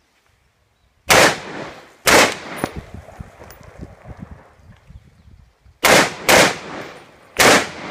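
Five rifle shots from an AR-15-style rifle, each followed by a short echo: two shots about a second apart, then after a pause of some three seconds a quick pair half a second apart and one more shot a second later.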